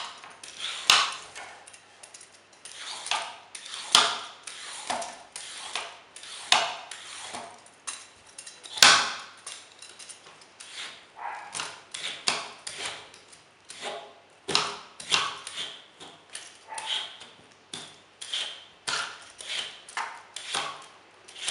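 Vegetable peeler scraping the skin off a long gourd (cucuzza) in repeated strokes, about one a second, a few of them sharper and louder.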